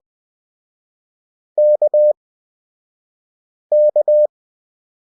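Morse code (CW) practice tone, a steady single-pitch beep keyed at 20 WPM character speed, sending the letter K (dash-dot-dash) twice, about two seconds apart, with long silent gaps from Farnsworth spacing.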